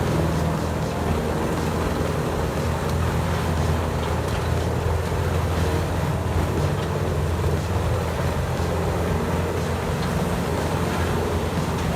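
Heavy machine's engine running steadily at a constant pitch, a deep even drone with no change through the stretch.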